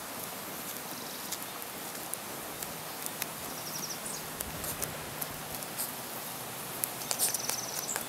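Wood campfire crackling, with scattered small pops over a steady hiss. Twice, about three seconds in and again near the end, a short high rapid trill sounds.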